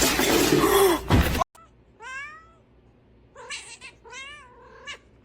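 A loud rush of noise cuts off abruptly about one and a half seconds in. Then a domestic cat meows about four times, drawn-out wavering cries.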